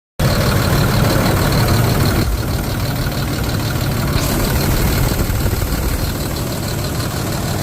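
Boom truck engine idling steadily, running with its thermostats gutted to test whether the overheating goes away.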